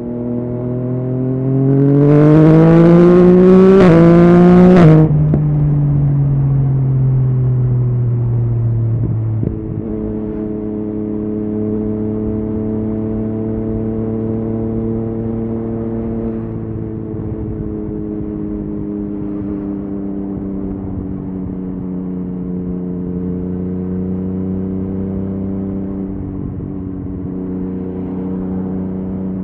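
Yamaha MT-09 inline-three engine through an Akrapovic exhaust accelerating hard, its pitch climbing through one quickshifter upshift about four seconds in. The throttle closes about five seconds in and the revs wind down, then the bike runs at a steady cruise with small swells in engine speed.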